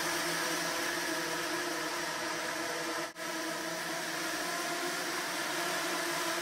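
A swarm of nano quadrotors flying together, the many small rotors making a dense, steady whirring buzz with several held pitches. The sound drops out for an instant about three seconds in.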